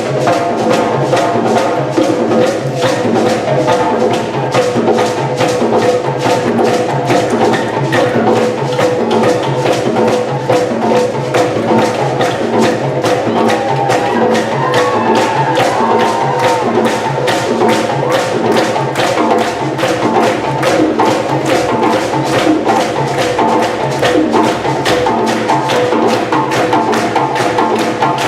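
A drum ensemble plays a fast, steady rhythm, with sustained pitched tones over the drums.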